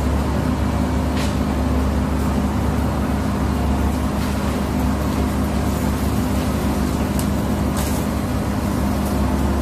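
Tracked excavator's diesel engine running steadily while its boom and grapple head work in a tree canopy, with a couple of brief high crackles about a second in and again near the end.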